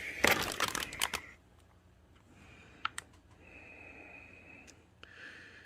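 Rapid clicks and rattles of a graphics card and its plastic being handled, then quieter, with a few single sharp clicks later.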